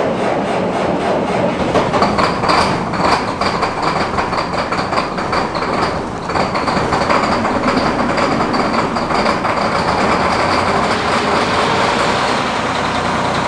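Combine's diesel engine turning over with a rapid chatter, then settling into steady running about six seconds in.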